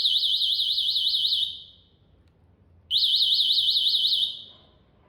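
Electric scooter alarm unit's siren sounding a rapidly warbling high-pitched tone in two bursts, the second coming about three seconds in. This is the locate signal triggered from the remote's find-my-scooter button.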